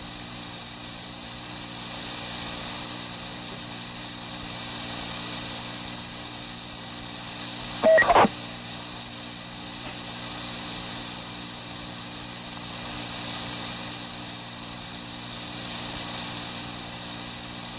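Steady hiss and low hum of an old police radio dispatch tape between transmissions, with one short loud burst, a fraction of a second long, about eight seconds in.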